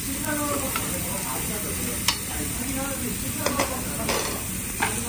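Beef and pork sizzling on a Korean barbecue tabletop grill plate, with a few sharp clicks of metal tongs against the grill as the meat is turned.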